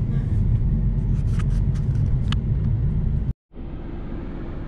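Steady low road-and-engine rumble of a moving car heard from inside, with a few light clicks. It cuts off abruptly about three and a half seconds in, and a quieter steady hum follows.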